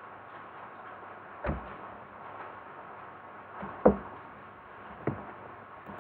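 Three single sharp clicks of a computer keyboard and mouse on a desk, spread a second or more apart, the second one the loudest, over a steady low background hiss.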